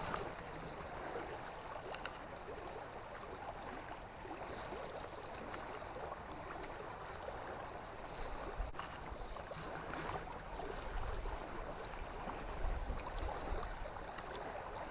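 Steady rush of a flowing river, with a low rumble that grows in the second half and a few faint clicks.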